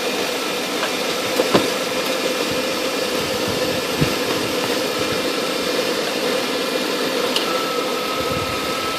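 A car engine idling steadily, with a few small clicks about a second and a half in and again around four seconds.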